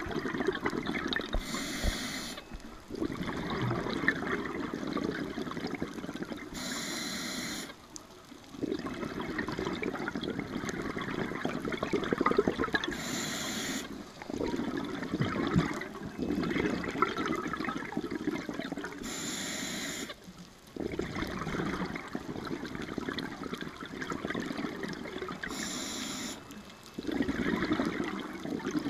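Scuba regulator breathing underwater: five hissing inhalations, about six seconds apart, each followed by a few seconds of rumbling, gurgling exhaust bubbles.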